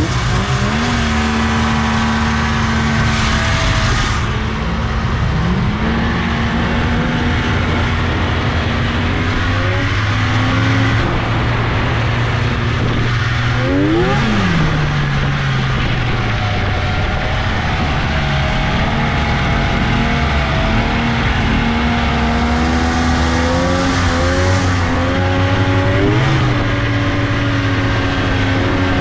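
Polaris XCR triple snowmobile's two-stroke three-cylinder engine running under way, its pitch rising and falling as the throttle is worked, with a quick rev up and back down about halfway through.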